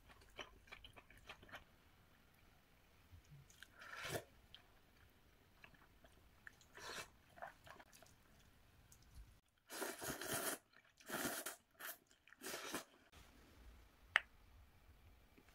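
Close-miked mukbang eating sounds: chewing, sipping broth and slurping spicy instant ramyeon noodles. A run of louder slurps comes about ten to thirteen seconds in, and a single sharp click near the end.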